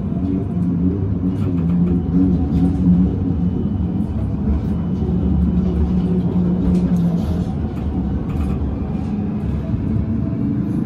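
Electric tram running, heard from inside the passenger cabin: a steady low rumble of the wheels on the rails under a low hum, with scattered light clicks and rattles.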